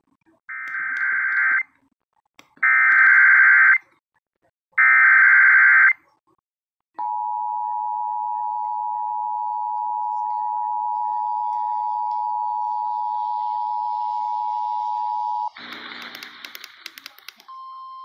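Emergency Alert System broadcast over FM radio: three short warbling bursts of SAME header data, then the two-tone EAS attention signal held steadily for about eight seconds. It announces a tornado warning. Near the end the tone cuts off, there is a brief jumble of noise, and a quieter single steady tone follows.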